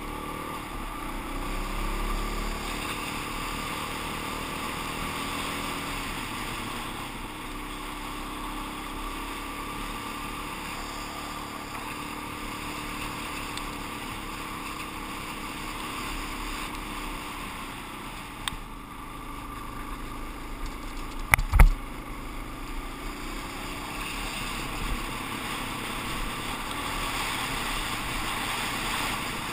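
Suzuki DR-Z400 single-cylinder dirt bike engine running steadily at riding speed on a gravel road, with road and wind noise. Its pitch shifts a little as the throttle changes. A loud, sharp double knock comes about three-quarters of the way through.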